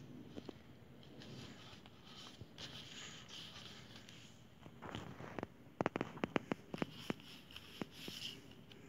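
Fingers rubbing a freshly stuck sticker flat onto a paper sticker-album page, a faint soft scraping, then a quick run of about eight sharp taps a little past the middle.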